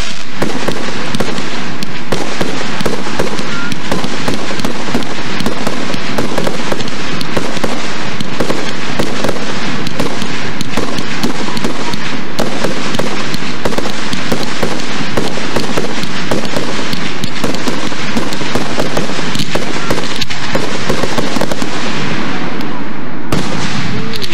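Aerial fireworks shells and crackling stars bursting in a dense, unbroken barrage of bangs and crackles, loud enough to sit near the recorder's limit.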